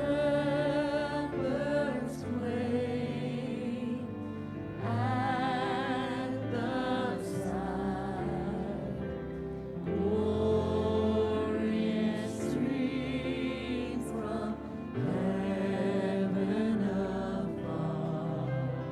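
Voices singing a slow Christmas carol over sustained instrumental accompaniment, phrase after phrase of a few seconds each.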